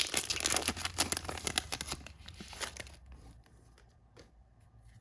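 A trading card pack's wrapper being torn open and crinkled: dense crackling for about two seconds, then dying down to a few faint clicks.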